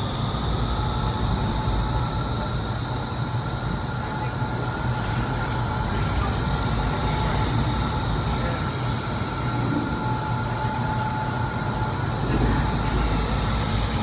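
Vertical wind tunnel running: the fans and the rushing air of the flight chamber make a steady loud rush with a high-pitched whine held over it.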